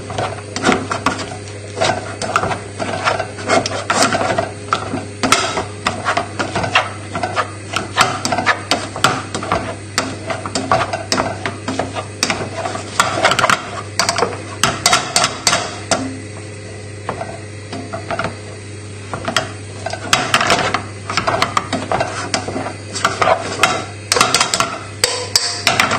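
Wire potato masher pounding and scraping boiled potatoes in a saucepan: rapid, irregular knocks and clatter of the masher against the pan, easing off for a few seconds about two-thirds of the way through.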